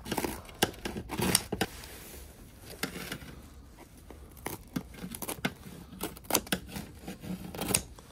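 Kitchen scissors snipping through a crisp, baked pizza crust: a series of short crunchy cuts in several groups, with pauses between them.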